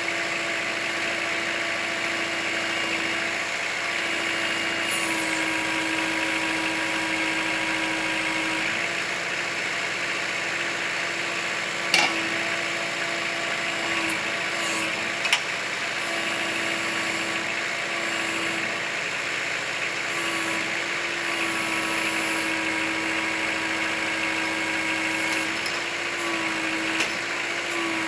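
Kubota L4600 tractor's diesel engine running steadily while the BH92 backhoe works, its pitch shifting slightly now and then. Two sharp clanks come about twelve and fifteen seconds in.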